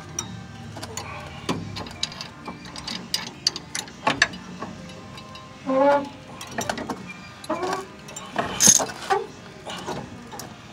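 Pipe wrench being worked on a car's tie rod adjusting sleeve to set the wheel alignment: irregular metal clicks and scrapes as the jaws grip and turn the sleeve. A few brief louder pitched sounds come between about six and nine seconds in.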